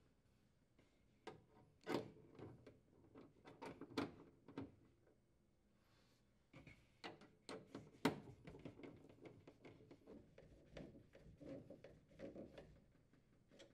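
Faint, scattered clicks and scrapes of screws being driven to secure a refrigerator's metal auger motor assembly on its brackets, with the sharpest clicks about 2, 4 and 8 seconds in.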